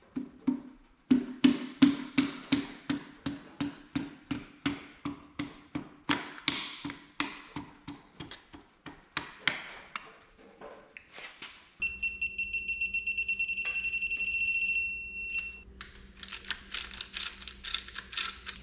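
A mallet tapping a piston down through a ring compressor into the cylinder bore of an Oliver 1855 engine block: quick, sharp taps about three a second. About twelve seconds in, a steady high tone with a low hum sounds for about four seconds, and lighter taps follow near the end.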